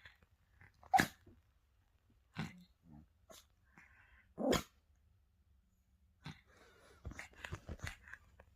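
Spitz dog barking in short, separate barks, the loudest about four and a half seconds in, then a quicker run of barks near the end.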